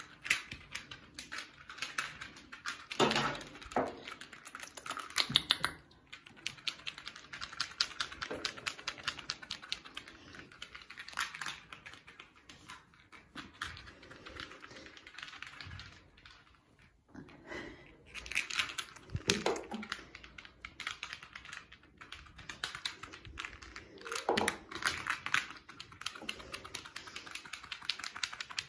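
Rapid light clicking and scratching of kittens' claws catching on a plush cat tree's fleece and carpet as they climb and play, in irregular flurries with a short lull midway.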